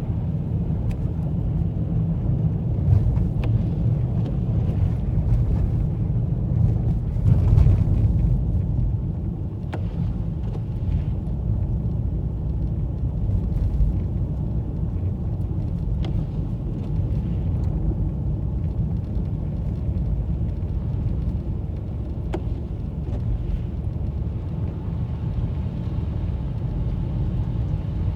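Car driving, heard from inside the cabin: a steady low rumble of engine and tyres, with a few faint ticks and a brief louder swell about seven seconds in.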